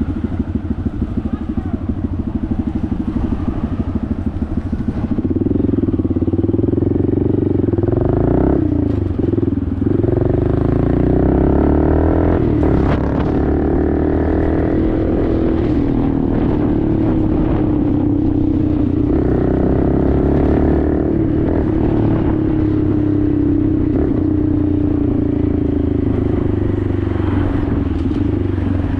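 Honda Grom's single-cylinder four-stroke engine through an aftermarket Toce exhaust, ticking over with a fast even beat for about five seconds, then pulling away louder and revving up and down through the gears while riding.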